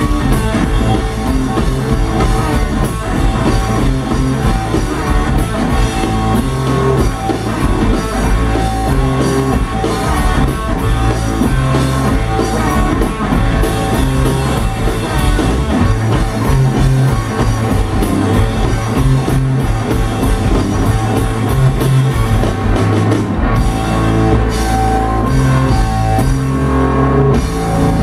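Live blues-rock trio playing: electric guitar over electric bass and a drum kit.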